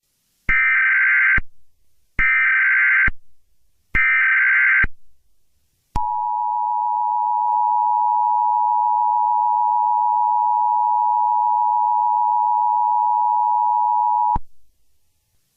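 Emergency Alert System tones: three short bursts of SAME header data, each about a second long with about a second between them, then the steady two-tone EAS attention signal, held for about eight seconds before it cuts off.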